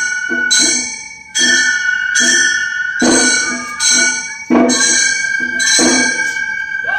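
Gion-bayashi festival music: small bronze kane gongs struck in a steady, quick rhythm, each stroke ringing bright and metallic, over a held high flute note. The playing stops near the end.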